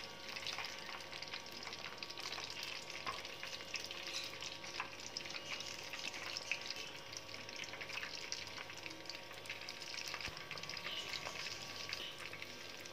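Potato snack fritters deep-frying in hot ghee in a wok: a steady sizzle with many small pops and crackles.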